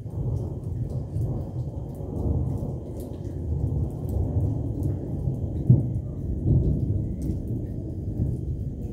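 Rolling thunder: a long, low rumble that swells and fades, with a louder crack-like peak a little before six seconds in.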